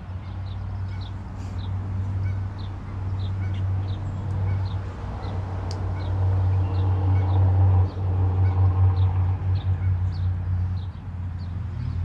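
A small creature's short, high chirp repeating about twice a second, over a loud, steady low rumble.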